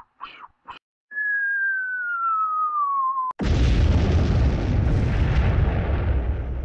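Cartoon bomb sound effect: after two short blips, a whistle falls steadily in pitch for about two seconds, then a sudden loud explosion gives way to a deep rumble that slowly fades.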